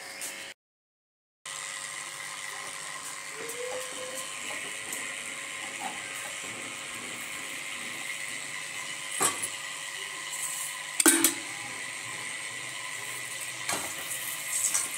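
Steady mechanical whirring hum with a thin high whine, cut to silence for about a second near the start. A few sharp clacks of a metal spatula on an iron tawa in the second half.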